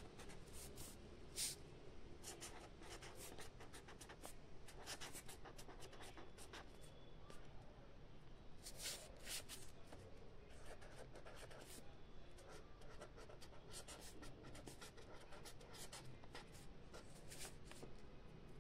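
Faint handwriting on paper: the writing tip scratches in many short, irregular strokes.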